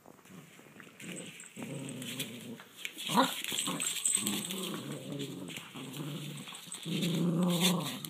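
Poodles growling in play while tugging on a toy, in several rumbling stretches, with one short sharper cry about three seconds in.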